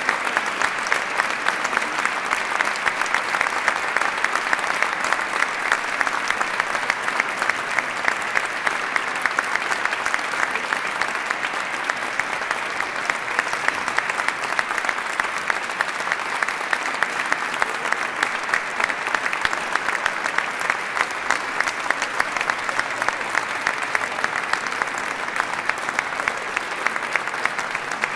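Audience applauding: many hands clapping in a dense, steady stream, easing a little partway through and then carrying on.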